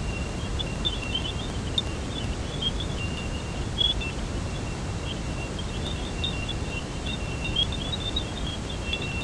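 Space radio recording turned into sound: a steady rumbling hiss, with many quick high chirps and a thin high whistle that comes and goes.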